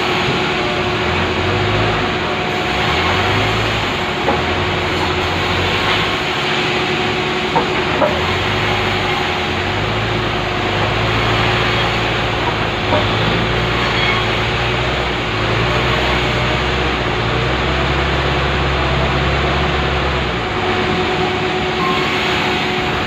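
Power saw running steadily as it rips lengthwise through a large pulai log, with a constant mechanical hum and a low rumble that shifts in level as the cut goes on.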